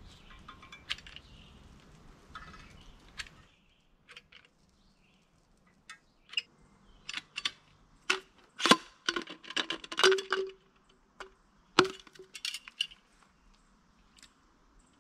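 Metal caulking gun being handled and loaded with a tube of caulk: an uneven run of sharp clicks and clanks, a couple of which ring briefly.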